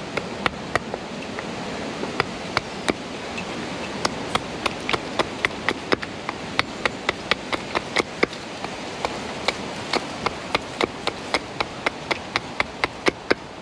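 Small hatchet striking an alder blank on a log chopping block, splitting and roughing it out: a run of sharp wooden knocks, about three a second, with short pauses.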